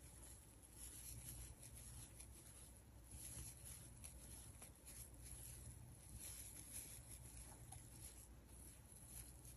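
Near silence, with faint soft rustling and scratching of yarn being worked with a crochet hook while double crochet stitches are made.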